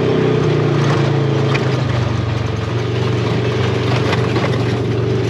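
Polaris RZR side-by-side's engine running steadily under way, heard from the cab, with tyre and gravel noise beneath it; the engine note eases down slightly about two seconds in.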